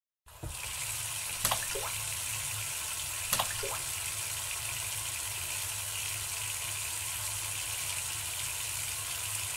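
Bathroom tap running steadily into a sink, with two short splashes of water being scooped up to wash the face, about a second and a half in and again about two seconds later.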